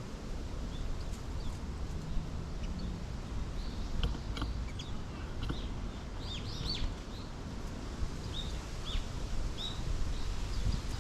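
Small birds chirping: scattered short, high notes, many sliding downward, busiest a few seconds in. Under them runs a steady low background rumble.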